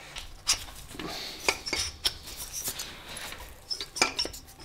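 Scattered light metallic clinks and knocks, about eight separate hits, from engine parts being handled as the finned air-cooled cylinder is pushed down over the piston and onto the steel studs of the Porsche 911 engine case.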